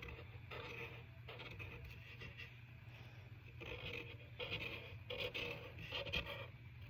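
A drawing tool scribbling on paper in short, irregular rubbing strokes, colouring in a picture.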